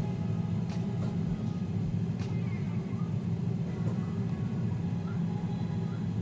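Gourmia digital air fryer running steadily as it preheats: an even fan whir and hum, with a few faint clicks.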